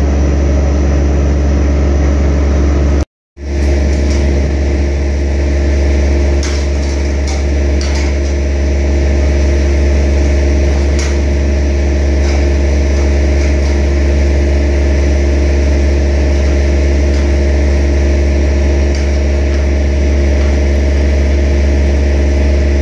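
Crane engine running steadily at constant speed while it lowers a heavy precast concrete chamber, with a few faint knocks and clinks. The sound cuts out for a moment about three seconds in.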